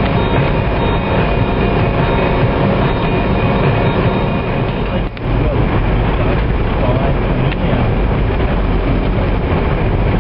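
Steady engine and tyre noise of a vehicle driving on a sealed highway, heard from inside the cabin. It drops out briefly about five seconds in.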